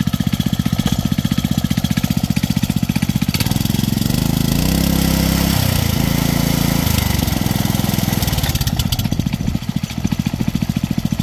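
Small Honda engine idling with an even putter, then revved up for about five seconds from roughly three seconds in and let back down to idle near the end, turning the torque-converter belt drive, go-kart gearbox and chain-driven jackshaft.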